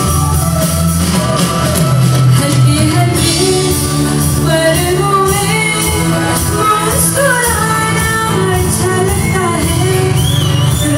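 A live band playing a Hindi film song, with a woman singing over the band's accompaniment in a large hall.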